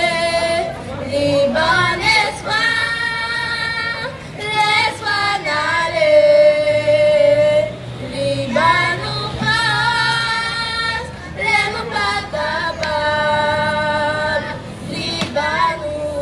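A group of girls singing a song into a microphone through a sound system. The song moves in phrases of long held notes with vibrato, with short breaks between them.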